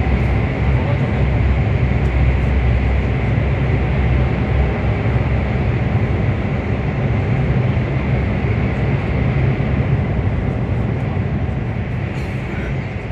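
Steady low rumble and rushing noise of a CRH1A high-speed train running at speed, heard inside the passenger cabin. It gets slightly quieter over the last few seconds.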